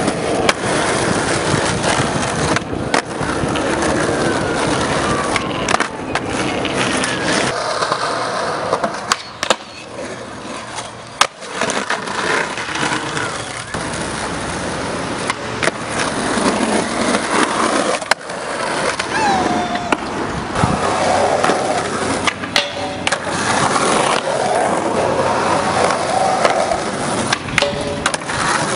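Skateboard wheels rolling over rough pavement, broken again and again by sharp clacks of tricks: the tail popping, trucks hitting and sliding on curb edges, and the board landing.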